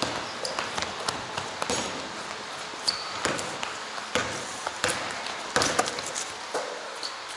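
A basketball bouncing and being handled on a hardwood gym floor, a string of irregular sharp knocks, with a few short high-pitched sneaker squeaks, in a large gymnasium.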